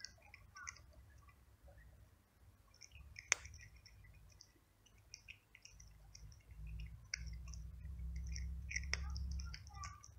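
A cat crunching dry kibble, a quick irregular run of small crisp crunches, with one sharper click about a third of the way in. A low rumble comes up in the second half.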